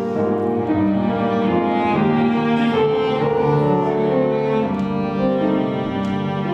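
Instrumental music of slow, held bowed-string notes with piano.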